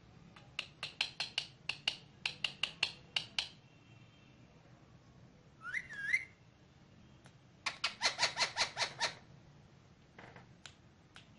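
Indian ringneck parakeet calling: quick runs of short, sharp chirps, several a second, with a brief wavering whistle in the middle.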